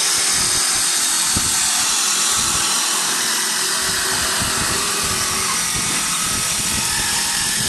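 High-speed automatic wood spindle turning lathe spinning and cutting a wooden chair spindle, giving a steady high hiss and whine.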